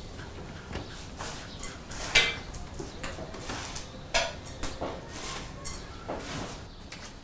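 Dishes and cutlery clinking: a string of short, sharp clinks and knocks, the loudest about two seconds in.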